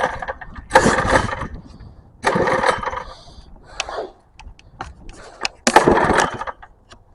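Small engine being pull-started again and again, about four pulls that each turn it over briefly without it catching. It won't fire because the fuel tank is dry.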